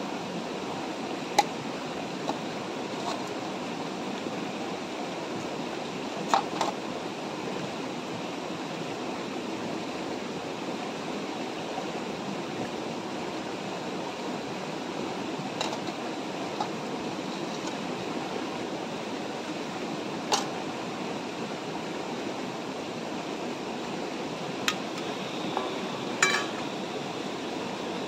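Steady rush of a shallow river flowing over rocks, with scattered sharp clinks and knocks of metal cookware being handled: a steel plate and knife, a portable gas stove and its canister, a frying pan set down. The loudest clinks come about a second in and around six seconds in.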